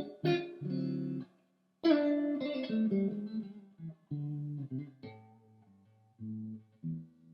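Electric guitar, a custom Fender Telecaster, played unaccompanied in short phrases of plucked chords and single notes, with a brief stop about one and a half seconds in.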